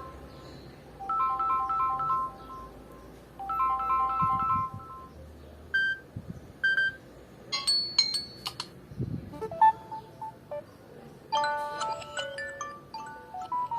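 Samsung Galaxy A10s speaker playing ringtone and notification tones. A short melodic phrase plays twice, then a run of different chimes and stepped note sequences follows, as tones are tried one after another. This shows the phone's sound working again after a firmware reflash.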